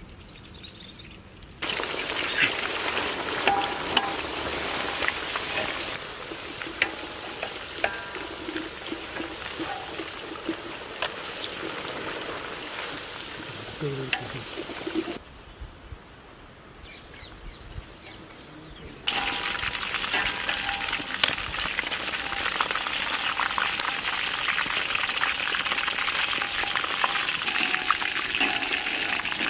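Food frying in a pan, with a steady sizzle full of small crackles. It starts about a second and a half in, dies down for a few seconds midway, then comes back louder.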